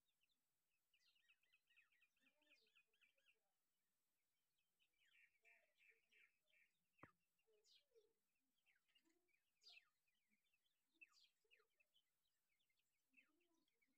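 Faint chirping of a flock of Dakhni (Irani) teetar partridge chicks: quick runs of short high chirps about a second in and again around five seconds in, then scattered single sharp calls.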